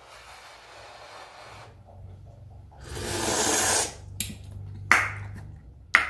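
A man blowing on a spoonful of hot bissara soup, then sipping and slurping it from the spoon: soft breathy blowing at first, a louder stretch of air and slurping about three seconds in, and a few short mouth or spoon clicks near the end.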